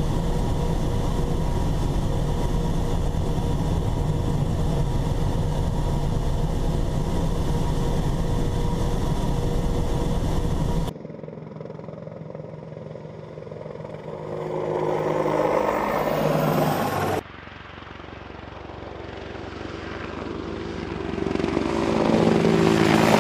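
AH-64D Apache Longbow helicopter's twin turboshaft engines and rotors: a steady on-board drone with fixed tones for about the first eleven seconds. After a sudden change the helicopter is heard from outside, swelling as it approaches and passing with a falling pitch. A second approach builds to its loudest near the end.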